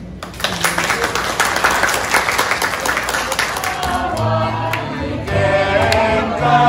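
Crowd applause, a dense patter of clapping, fills the first few seconds. About four seconds in, a group of people starts singing together to acoustic guitar.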